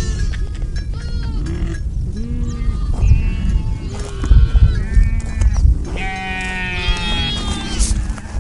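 A flock of small livestock bleating: many short calls overlap one another, with one longer call near the end, over a low rumble.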